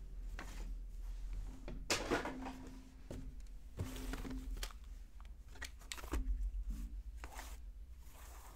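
Trading cards and their plastic sleeves being handled on a table: a handful of brief rustles and scrapes a second or two apart, with a light knock a little before four seconds in and another around six seconds in.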